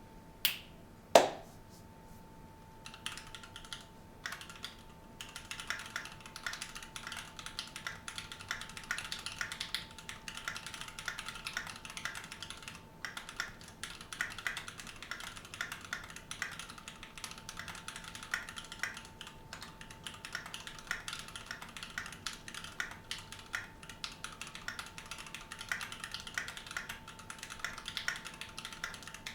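Typing on a Keychron Q2 mechanical keyboard with stock Gateron Brown tactile switches: a dense, steady stream of keystroke clicks beginning about three seconds in. Two sharper, louder knocks come first, the louder one about a second in, and a faint steady hum runs underneath.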